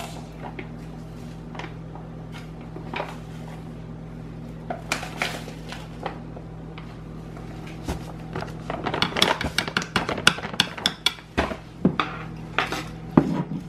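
Small metal measuring spoon scooping Himalayan pink salt from its pouch, with light scattered clicks, scrapes and rustles that grow busier in the second half.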